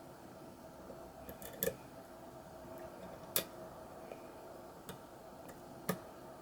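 Lock pick and tension wrench working the pins of a custom pin-tumbler lock during single-pin picking. There are a few sharp, small metallic clicks: a short cluster about a second and a half in, then single clicks spaced a second or more apart, over a faint steady hum.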